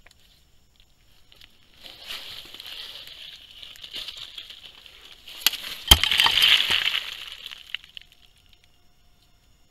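Rustling and scraping right on a camera trap's housing as an elephant's trunk works a leaf over the lens. It starts about two seconds in, with one sharp knock near six seconds followed by the loudest scraping, and dies away before eight seconds.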